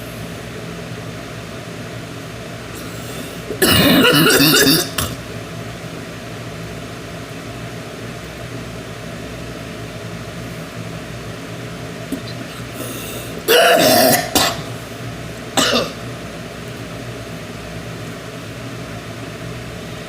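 A woman coughing in three bouts: a long coughing fit about four seconds in, another about thirteen seconds in, and a single short cough just after.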